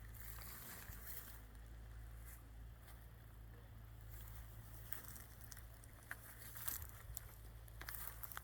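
Faint outdoor garden ambience: a steady low rumble with scattered light rustles and clicks, more of them a few seconds before the end.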